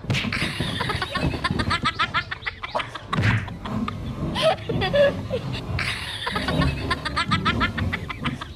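Laughter: two stretches of rapid, repeated 'ha-ha-ha' laughing, the second starting about six seconds in.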